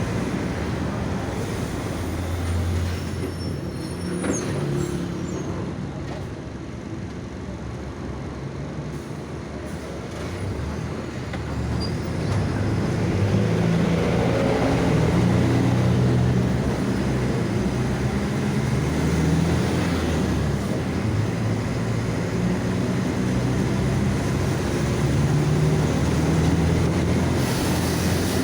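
Mercedes-Benz OF-1722M city bus under way, its diesel engine and drivetrain heard from inside. The engine eases off for several seconds, then pulls harder from about halfway through. Under it runs the differential growl this bus is known for.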